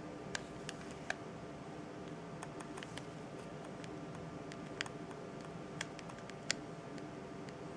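Sharp, irregular clicks of a Nokia 7390 clamshell phone's keys being pressed, about ten of them, over a faint steady hum.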